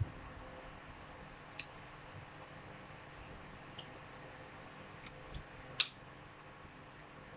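Metal fork clicking against a plate, about six short scattered clicks over a faint steady hum, the loudest a little over three-quarters of the way through.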